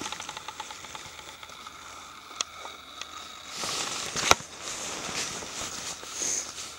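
Footsteps crunching on thin snow over dry leaf litter, with scattered small crackles and a louder sharp click a little after four seconds in.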